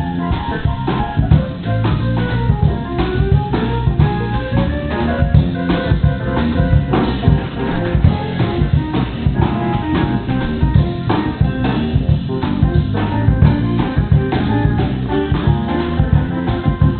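Background music: a band with drum kit and guitar playing a steady beat.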